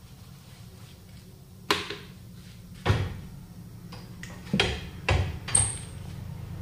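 About five sharp metallic clanks of a tyre lever and steel wheel rim against a tyre-changer machine, as a small tyre's bead is worked over the rim. The last clank has a short high ring.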